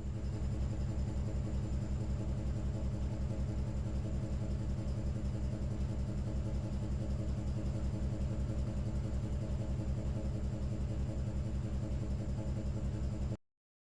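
Electric facing planer of an HDPE butt-fusion welding machine running steadily, a low pulsing motor hum as it trims the pipe ends flat. It cuts off abruptly near the end.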